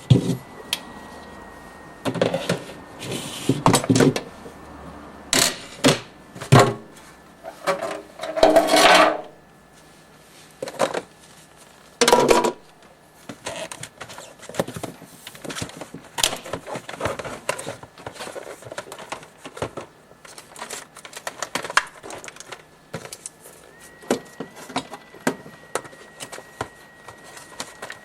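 Repeated clicks, taps and clattering of hard plastic and metal parts being handled, as when a refrigerator's panels and parts are taken apart. There are several louder bursts of knocking in the first half and lighter, quicker ticking later, over a faint steady high tone and low hum.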